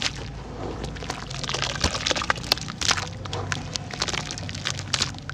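Big red dirt (sand-cement) cylinders crumbling in water: a long run of small sharp cracks and crackles, over a faint steady low hum.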